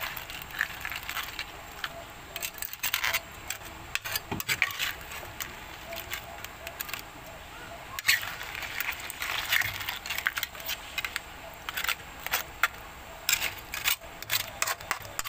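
A metal spatula stirring crabs in sauce in a stainless steel pot: irregular clinks and scrapes of metal on the pot and hard crab shells knocking together.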